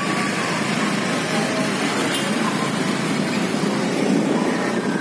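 Steady traffic noise of a jammed street: motorbike and car engines running in slow, stop-and-go traffic.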